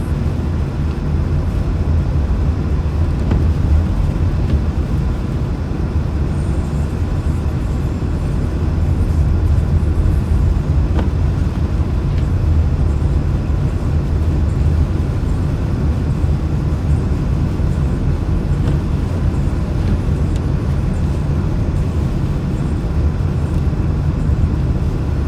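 Steady low rumble of a car driving on a highway, heard from inside the cabin: engine and tyre noise on a snowy road.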